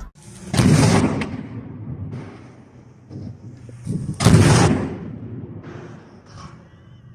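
Two loud booming blasts about three and a half seconds apart, each dying away over about half a second, with fainter knocks and rustles between them.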